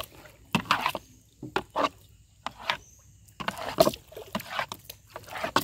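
A string of short splashes and knocks from a small wooden canoe (sampan) on the water, about eight in all, the loudest a little past the middle.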